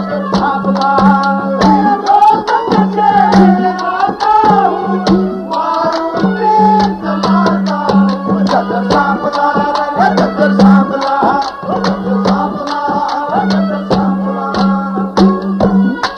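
Haryanvi ragni folk music: tabla-style hand drumming with a melody over a steady low held note that drops out and returns every second or two.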